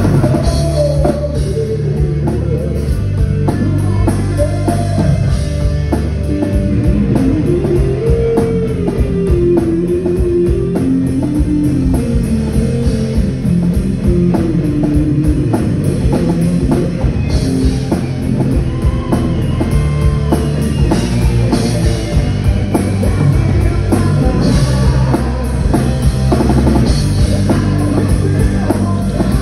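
Live rock band playing an 80s hair-metal cover: drum kit and bass under an electric guitar lead line that slides and bends, with no singing.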